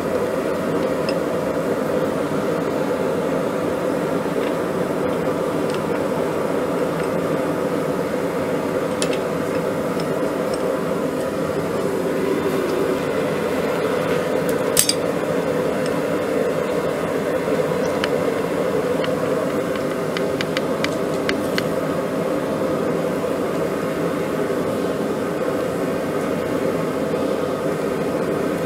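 Steady rushing noise of a forge running, with a few light clicks, the sharpest about halfway through.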